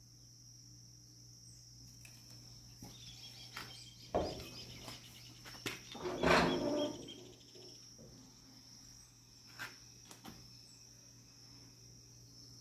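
Clicks, knocks and a scraping rattle of a small steel sheet being set and bent in a manual sheet-metal bending brake, loudest about six seconds in, with single clicks near the end. A steady high whine and a low hum run underneath.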